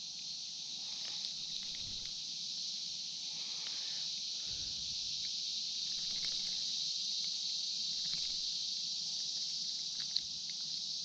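Steady high-pitched chorus of insects, an unbroken buzz, with a few faint handling clicks.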